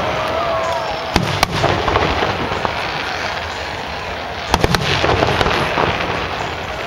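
Fireworks display: aerial shells bursting with sharp bangs about a second in and again a little after four seconds, over a continuous crackle of falling sparks.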